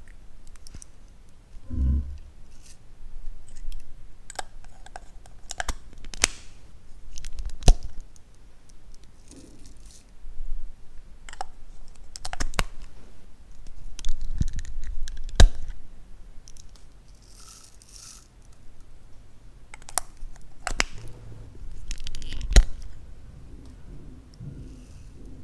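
Plastic lipstick case being opened and handled: irregular sharp clicks and snaps from its cap and case every second or few, with light rustling between and a low thump about two seconds in.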